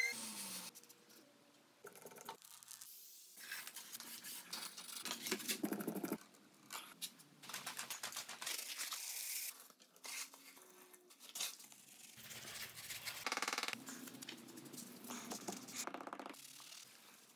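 Scraping and rubbing from hand work on concrete, in a string of short clips that start and stop abruptly.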